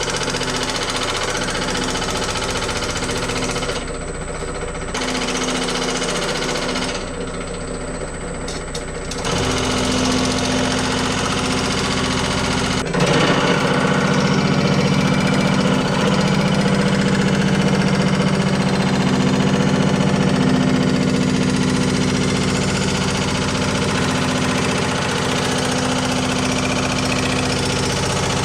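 Motor-driven sheet-metal shaping machine running, its reciprocating ram hammering rapidly and continuously on steel sheet. It eases off briefly twice and gets louder about thirteen seconds in.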